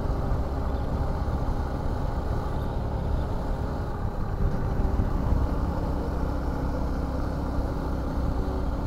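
Suzuki V-Strom 250 motorcycle engine running steadily while being ridden uphill, heard through the rider's action camera.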